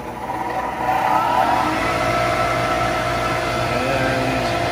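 Stock 6-inch centrifugal exhaust blower for a laser cutter, its electric motor and squirrel-cage impeller spinning up with a rising whine over the first second or so. It then runs steadily and loudly, a low hum under a rush of air with a few steady tones.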